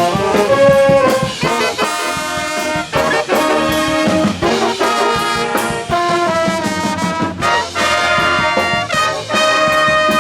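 Brass instruments, trumpets and trombones, playing a tune in a run of short held notes.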